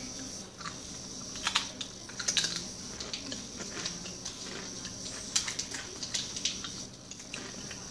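Doritos tortilla chips crunching as they are chewed: irregular crisp crackles, coming in clusters about one and a half seconds in and again around five and a half seconds.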